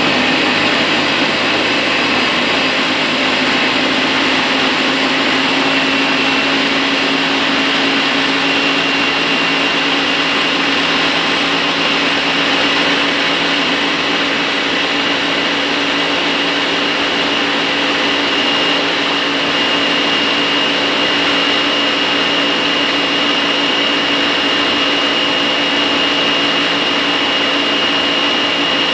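Ninja blender running at a steady speed, loud, with a steady whine, pulverising torn scrap paper and water into papermaking pulp.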